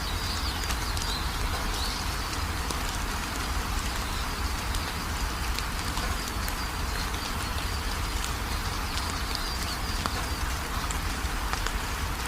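Steady rain falling, a dense patter of drops over a low rumble, with faint high-pitched calls near the start and again near the end.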